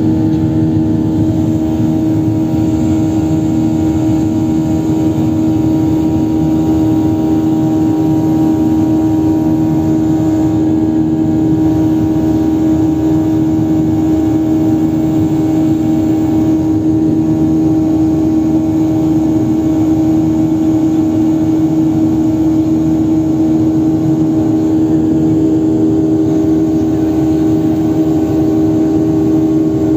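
Jet airliner engines and airflow heard inside the cabin during the climb after takeoff: a loud, steady drone with a strong unwavering hum.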